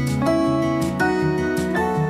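Background music led by strummed acoustic guitar.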